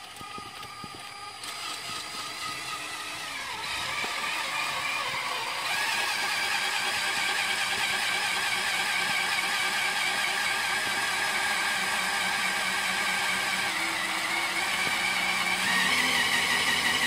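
Cordless drill running steadily under load, spinning the engine's oil pump through a stripped-down distributor shaft to prime the oil system and turbocharger before first start. Its whine gets louder over the first several seconds, then holds steady.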